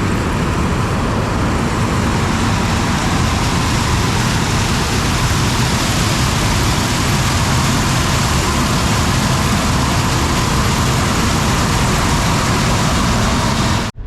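Combine harvester running steadily while cutting corn: an even engine drone under loud, continuous machine noise that cuts off suddenly near the end.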